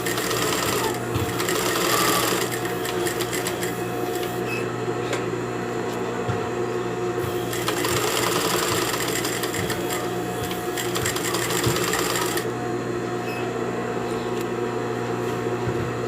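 Sewing machine running steadily, machine-basting layers of tulle and organza together with a long stitch length (dial set to 3).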